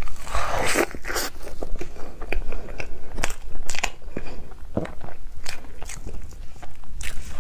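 Close-miked eating: biting into and chewing crepe cake, with many short sharp mouth clicks and a longer wet chewing burst about half a second in.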